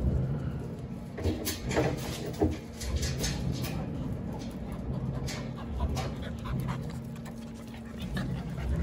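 Jindo dogs panting at close range, with a few short, sharp sounds between about one and two and a half seconds in.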